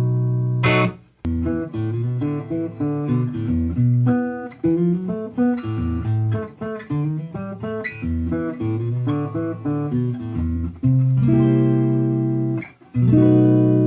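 Guitar being played: a ringing chord damped about a second in, then a run of single picked notes for about ten seconds, then a strummed chord left to ring, stopped, and struck again near the end.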